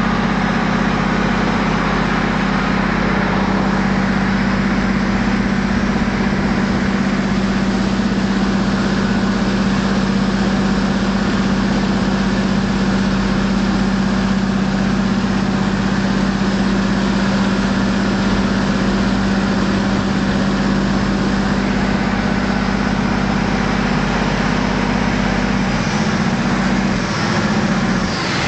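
Canal passenger boat's engine running hard and steady as the boat speeds along, with water rushing past the hull. The engine note shifts about two seconds before the end.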